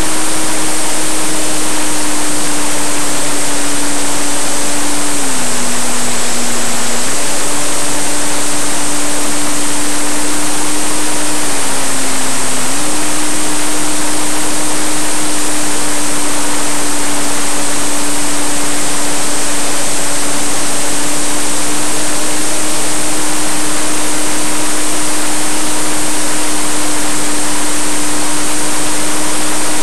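Electric motor and propeller of a Parkzone radio-control warbird, heard from a camera mounted on the plane, droning at a steady pitch under a loud rush of wind, with a thin high whine above. The drone dips lower twice, briefly, about five and twelve seconds in, then settles back.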